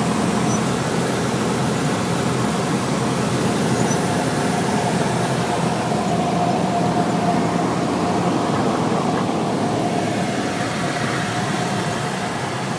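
Cabin noise of a light single-engine propeller plane landing: a steady drone of the piston engine and propeller mixed with wind rush. It eases slightly near the end as the plane rolls out on the runway.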